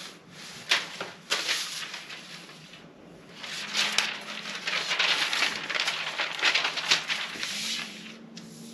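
Paper pattern pieces rustling and crinkling as they are handled, with two sharp clicks in the first second and a half and a denser stretch of rustling in the middle.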